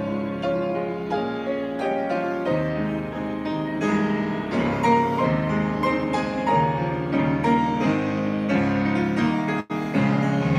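Solo grand piano playing a hymn arrangement, a steady flow of notes and chords, with a momentary dropout in the sound near the end.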